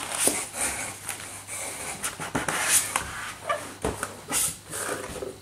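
Polystyrene foam packing squeaking and scraping in irregular bursts, with a few light knocks, as a foam spacer block is pulled free and a shotgun barrel is lifted out of its foam slot.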